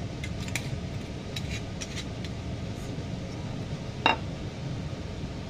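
A few small clicks as the cap is handled on a glass bottle, then about four seconds in a single sharp clink with a brief ring as the glass bottle is set down. A steady low hum runs underneath.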